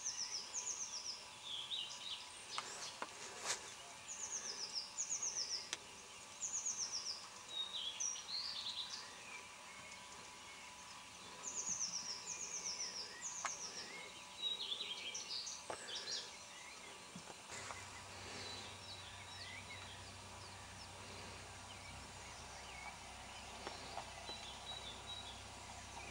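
Songbirds singing: repeated phrases of three or four quick, high, falling notes, with scattered shorter chirps between them. A faint low steady hum comes in past the middle.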